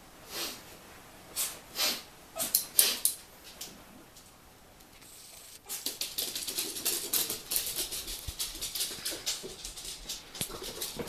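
A small begging dog makes about six short breathy bursts of sound in the first few seconds. From about halfway there is a fast run of claw clicks as dogs move about on the hard floor.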